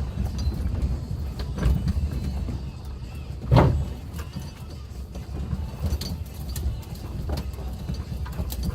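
Suzuki Jimny driving on a rough forest road: a steady low engine and road rumble with scattered knocks and rattles, and one heavy thump about three and a half seconds in.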